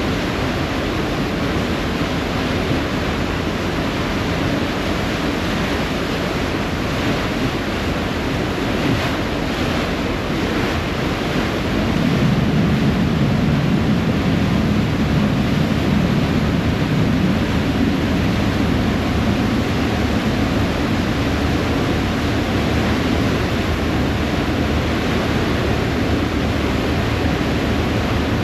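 A harbour ferry's wake churning and splashing behind the stern, over the steady low rumble of its engines, with wind. The low rumble grows louder about twelve seconds in.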